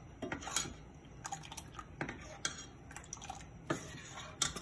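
Oil heating on a cast iron griddle, giving scattered, irregular pops and ticks.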